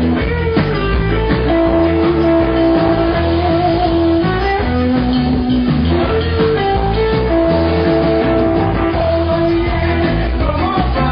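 Live rock band playing, with electric guitar to the fore and long held notes over a steady beat.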